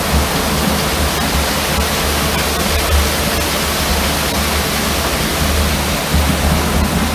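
Wet concrete rushing down a mixer truck's chute into a tremie hopper: a steady rushing noise over a low rumble.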